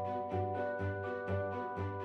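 Instrumental background music: repeated notes at about four a second over held tones.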